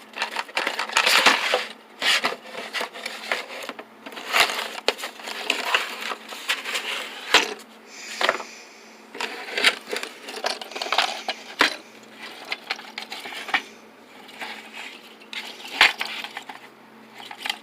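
A gun barrel brush cleaning kit being unpacked by hand: packaging rustling and small hard parts clattering and clicking on and off, in irregular bursts.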